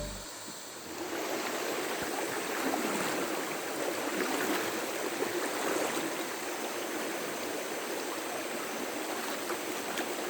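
River water flowing steadily, an even rushing babble of the current.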